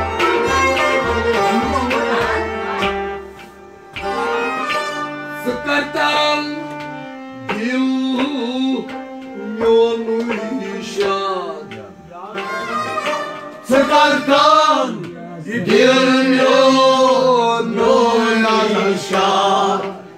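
Kashmiri folk music: a hand drum beats a steady rhythm for the first few seconds, then a wavering, ornamented melody carries on in phrases with short pauses between them.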